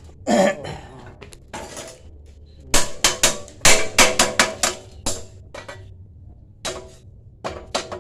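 Hammer striking steel bar stock, sharp ringing metallic blows in irregular bunches, as the bar is knocked into place to fit a round steel frame.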